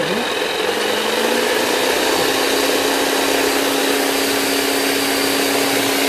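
An 11 kg electric concrete breaker of the Bosch GSH 11E type, running steadily at its lowest speed setting with a continuous motor-and-hammer drone. Its pitch rises slightly over the first second or two, then holds steady.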